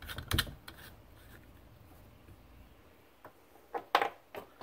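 Hard plastic clicks and light rubbing from a Bakelite lamp socket shell being handled and twisted by hand. There is a cluster of clicks at the start, then a few sharper single clicks near the end.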